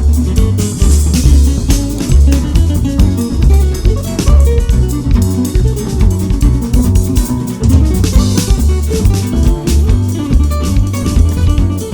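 Outro music with a steady beat and heavy bass notes.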